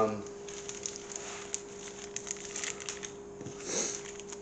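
Plastic bags of small model-kit fittings crinkling and rustling as they are handled, with scattered light clicks of small parts. A faint steady hum runs underneath.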